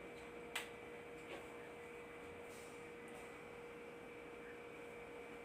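Quiet room with a faint, steady electrical hum and one small click about half a second in.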